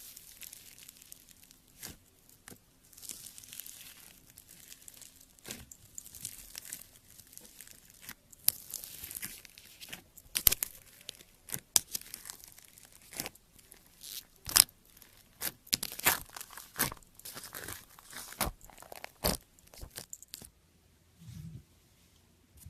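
Slime being handled and squeezed, giving irregular crackling and sharp popping clicks that grow denser through the middle and stop shortly before the end.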